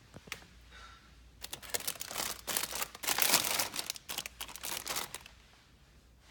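A couple of light clicks, then cellophane wrapping crinkling and rustling in quick crackles for about four seconds.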